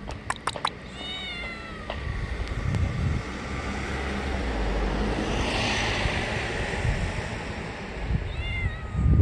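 Orange tabby cat giving two short meows, about a second in and again near the end. Just before the first meow come a few sharp clicks, and in the middle a rushing noise swells and fades.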